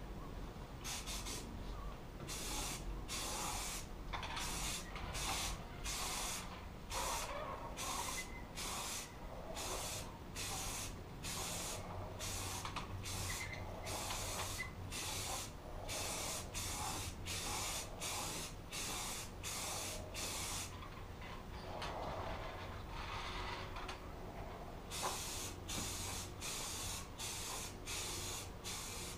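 Aerosol spray can hissing out paint in many short, rapid bursts, with a pause of about four seconds past the middle before the bursts resume.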